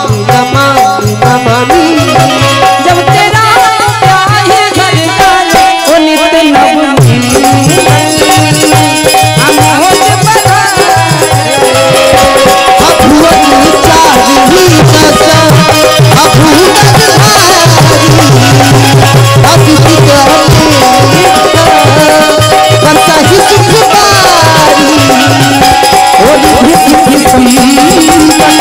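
Devotional Ramayan chaupai music: a harmonium melody over a steady hand-drum beat with jingling rattle percussion. The sound fills out with a heavier drum bass about twelve seconds in.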